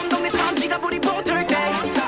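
K-pop boy-group song playing from a music video: sung vocals over an electronic dance beat.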